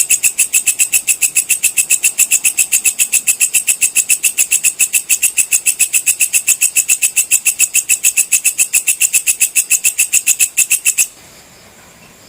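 Walang kecek (belalang kecek) insect calling: a loud, fast, even train of high, shrill clicking chirps, several a second, that cuts off abruptly about eleven seconds in.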